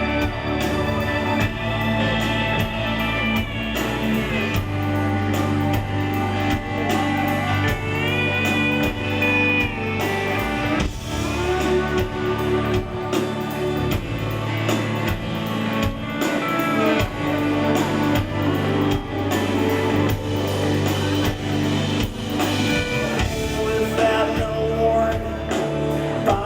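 Rock band playing live in an instrumental passage: electric guitar lines with bent, held notes over bass and drums.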